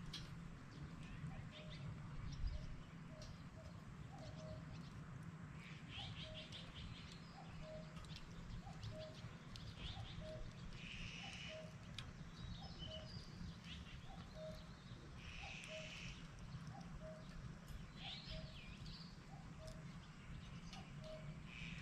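Forest birds chirping in short bursts every few seconds over a short low call that repeats steadily, with faint crackles from a wood fire and a low steady background hum.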